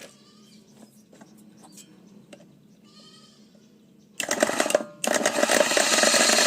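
Solar-powered DC mixer grinder switched on: a short burst, a brief dip, then running at speed with a rattle. The presenter says straight after that he had not tightened it properly.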